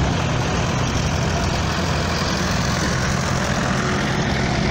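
Tractor engines running steadily as a procession of tractors drives past: a vintage blue Fordson Major goes by, then large modern red tractors come up, a steady low engine drone.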